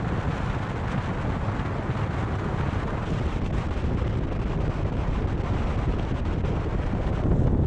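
Wind buffeting the microphone: a steady, rumbling rush, heaviest in the low end.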